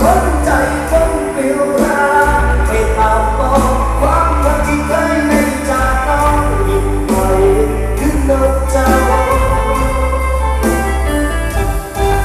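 A song playing loud through a pickup truck's custom-installed car audio system, with heavy, deep bass.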